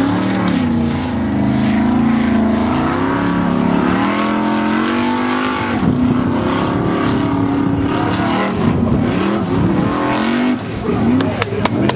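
Formula Offroad buggy's engine at high revs, climbing a steep dirt hill under full throttle, its pitch rising and falling with the throttle. About ten and a half seconds in, as the buggy crests the hill, the note drops and turns choppy.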